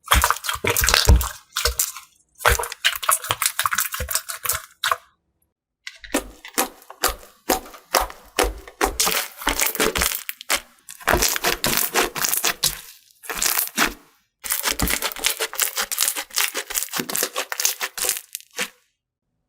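Slime being pressed and worked by hand, giving dense crackling and popping clicks in bursts of a few seconds, broken by short dead-silent gaps about five seconds in and again near the end.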